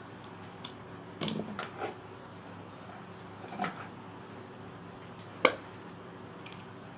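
Small handling noises as a tube of cream is squeezed over a glass mixing bowl: a few soft knocks and rustles between one and two seconds in, another near the middle, and one sharp click about five and a half seconds in, over a low steady hum.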